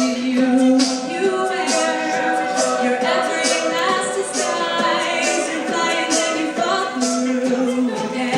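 Mixed a cappella group singing held, stacked chords without instruments, with a beatboxer keeping time in short hissing strokes about twice a second.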